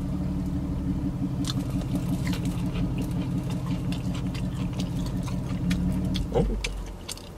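Crunching and chewing of crispy fried chicken, a scatter of crisp clicks, over a steady low hum that stops about six seconds in.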